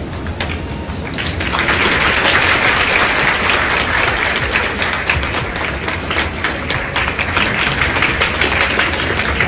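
Audience applauding, swelling louder about a second and a half in.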